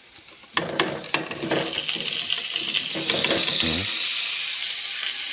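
Sliced raw potatoes sliding off a plate into hot oil in a kadai of frying onions. About half a second in the oil breaks into a sizzle that grows and then holds steady, with a few sharp clinks of plate and potato slices against the pan near the start.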